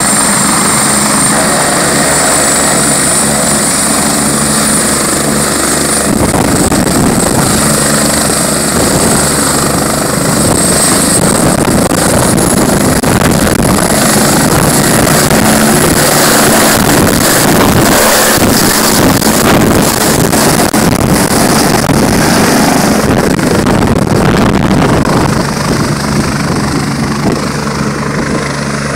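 Airbus Helicopters EC145 twin-turbine helicopter running loud on the ground with its rotors turning and a high, steady turbine whine, then lifting off into a low hover. The whine fades about twelve seconds in, the noise is loudest in the middle, and it falls away near the end as the helicopter flies off.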